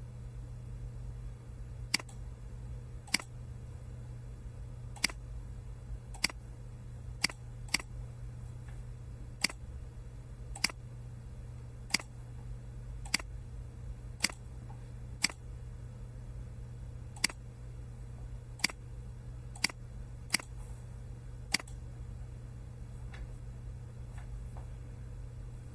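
A run of sharp single clicks, unevenly spaced at roughly one a second, over a steady low hum; they stop a few seconds before the end.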